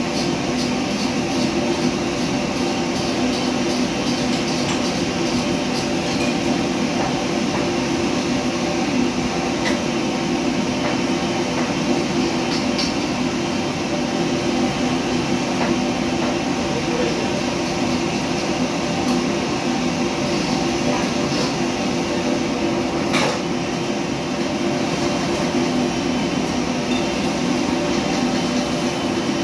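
Steady mechanical drone of a commercial kitchen's extraction hood and gas wok station, with occasional sharp metal clinks of a ladle on the wok, the loudest about 23 seconds in.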